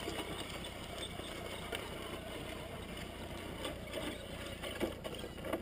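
Electric radio-controlled trucks driving over sand at a distance: a faint motor whir under a steady low rumble, with a few light ticks.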